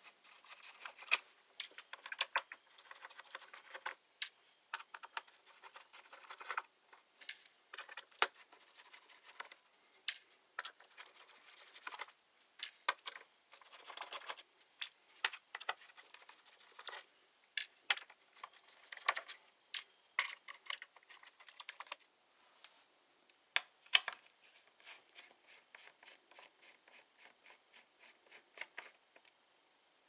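Small screwdriver backing out the bottom-cover screws of a laptop: irregular sharp clicks and short scratches of the bit in the screw heads, with the small screws and tool tapped down on a plastic-covered surface.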